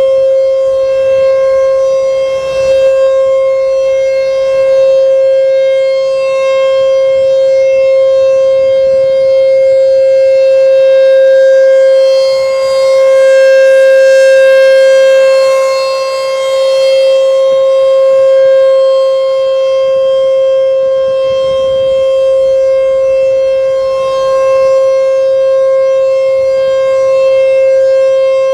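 American Signal T-128 rotating electronic outdoor warning siren sounding a loud, steady single-pitch tone during a siren test. Its loudness swells and fades slowly as it runs.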